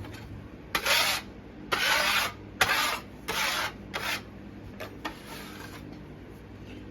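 Several short scraping and rubbing bursts from a casting mold and its flask being handled and shifted, with one sharper knock about two and a half seconds in, over a low steady hum.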